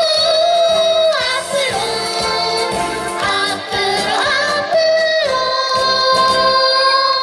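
Children's choir singing with an instrumental backing track that keeps a steady beat, finishing on a long held note near the end as the accompaniment drops out.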